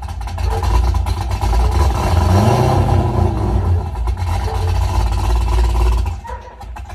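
Cammed V8 of a C6 Corvette with a Stage 4 Brian Tooley Racing camshaft, running loud through its exhaust. It revs up and falls back about two to three seconds in, then drops quieter briefly near the end.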